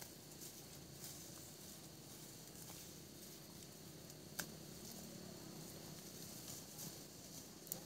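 Water buffalo grazing: faint rustling and tearing of leafy plants as it feeds, with small crackles and one sharp click about four and a half seconds in.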